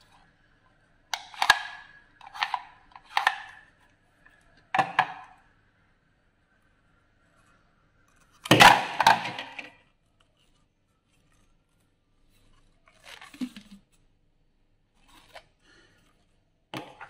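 Hard plastic vacuum-cleaner attachments handled and fitted together on a wooden table: a series of separate plastic clacks and knocks, the loudest cluster about eight and a half seconds in, then a few fainter taps.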